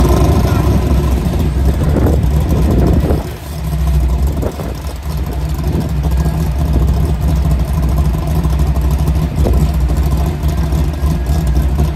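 Small-tire Camaro drag car's engine running at a loud, steady idle, with a brief dip in level about three and a half seconds in.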